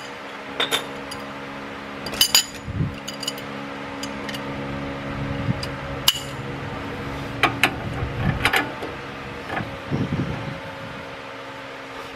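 Metal hand tools clinking and knocking as a breaker bar and socket are handled and fitted onto a tie rod nut, in scattered short clinks, over a steady background hum.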